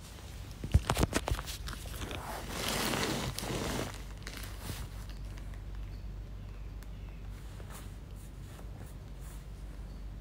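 Phone microphone handling noise: a few sharp knocks about a second in, then a couple of seconds of fabric rustling as the phone shifts against cushions, then only faint rustles.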